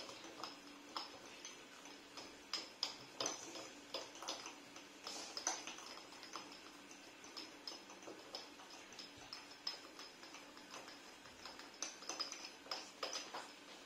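Felt-tip markers stirring fine salt in small glass jars: irregular light clicks and ticks of the marker tips against the glass, several at once, over a faint gritty rustle of salt.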